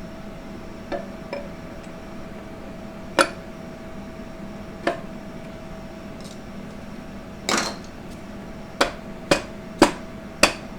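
Metal parts of a 4L60E transmission clinking as the center support is set down into the aluminium transmission case. Scattered single knocks give way near the end to a run of sharp taps about two a second as it is worked into place.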